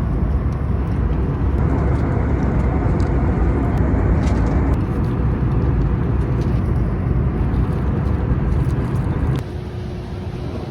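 Steady roar of a jet airliner cabin in flight, a dense low rush of engine and airflow noise. The level drops suddenly near the end and stays lower.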